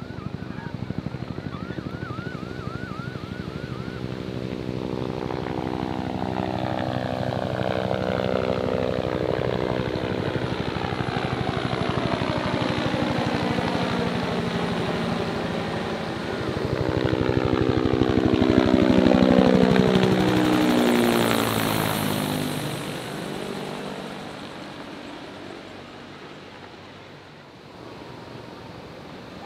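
Helicopters flying past with a steady rotor beat. Two passes, the beat falling in pitch as each goes by; the second, about two-thirds of the way in, is the loudest, then it fades away.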